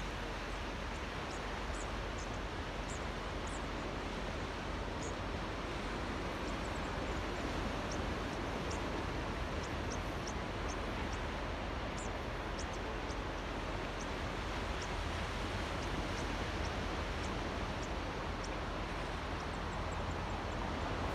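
Gentle waves lapping and washing in a tidal ocean channel, a steady even wash over a low rumble. Short high chirps come and go throughout.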